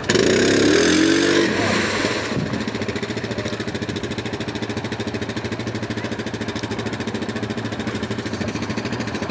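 ATV engine revving loudly, its pitch rising and falling for about two seconds. It then settles into a steady, evenly throbbing idle.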